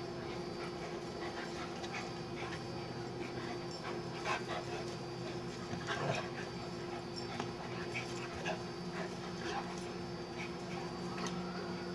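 Two dogs at play, a large shaggy black dog and a small dog, making short scattered dog sounds, the loudest about four and six seconds in.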